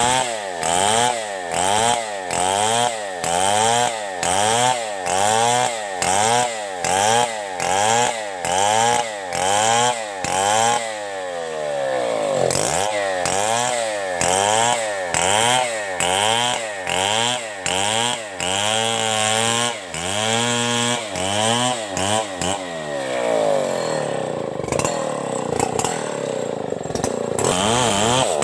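Two-stroke chainsaw ripping a coconut trunk lengthwise. The engine pitch rises and falls about twice a second through the first ten seconds, then runs more evenly under load, and sags lower near the end.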